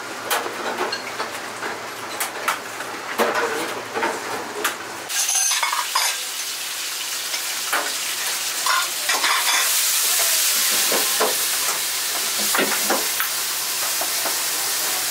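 Busy restaurant kitchen: food sizzling in a hot pan, with utensils clinking and knocking against pots and pans. The sizzling hiss grows louder about two-thirds of the way through.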